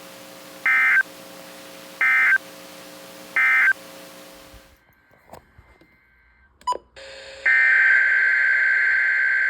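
Three short Emergency Alert System data bursts, the warbling SAME end-of-message tones, each a fraction of a second long and about a second apart, over a low steady hum. They mark the end of the alert message. The audio then goes near silent with a couple of clicks, and a loud steady high tone begins about seven and a half seconds in.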